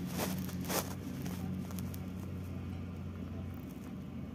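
Steady low hum of an idling engine, with two short rustling scrapes in the first second; the low part of the hum drops away about three and a half seconds in.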